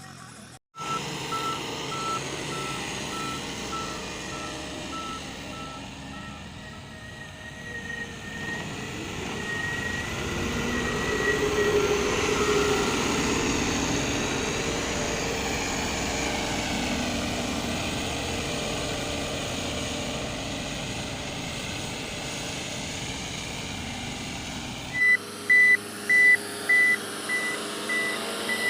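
Tractor engine running while a reversing alarm beeps at an even rate; the engine grows louder for a while around the middle. Near the end the sound changes abruptly to a higher-pitched beeper, with several loud beeps.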